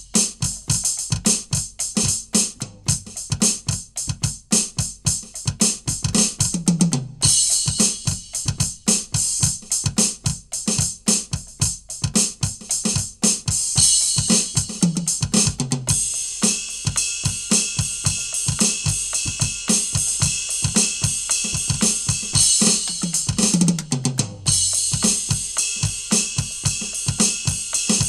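Aroma TDX-21 electronic drum kit played with its 'Dance Kit' preset: a continuous groove of kick, snare and hi-hat with cymbals ringing over much of it. Tom fills run down in pitch about six, fifteen and twenty-three seconds in.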